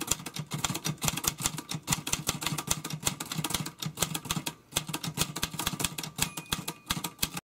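Rapid, irregular clicking, several sharp clicks a second, that cuts off suddenly at the end.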